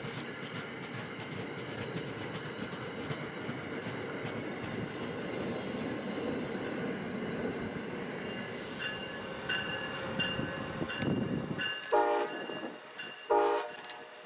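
Amtrak passenger train hauled by an ACS-64 electric locomotive passing, with steady wheel-and-rail rumble and some high tones. Near the end, two short train-horn blasts are the loudest sounds.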